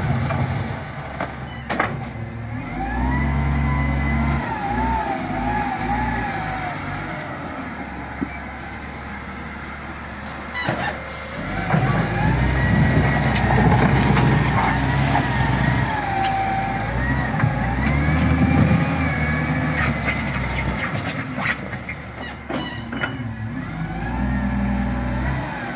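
Bulldozer's diesel engine working under load, its pitch and level rising and falling in several surges, with a few sharp metallic knocks.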